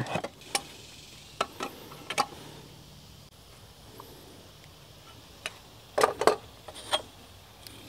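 Light scattered clicks and taps from a pencil and small hand tools being handled and set down on a wooden timber, with a short cluster of louder knocks about six seconds in.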